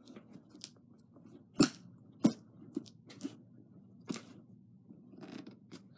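A cardboard package being worked at by hand to cut it open: scattered knocks, taps and scrapes, the two loudest about one and a half and two and a quarter seconds in.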